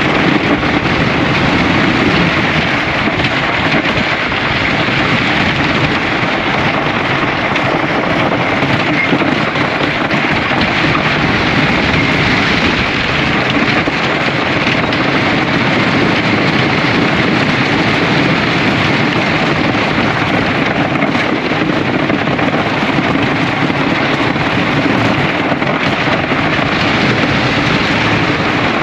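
Hoosier Hurricane wooden roller coaster train running its circuit from the back row: a steady, loud rush of wind over the camera microphone mixed with the rumble of the wheels on the wooden track.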